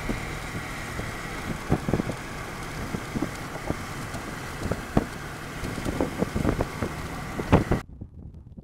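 Strong storm wind rushing over the microphone, with irregular buffeting thumps throughout. It cuts off suddenly near the end.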